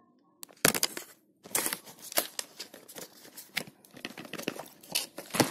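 Packaging being handled: irregular crinkling, rustling and clicks, with a sharp click about a second in and another near the end.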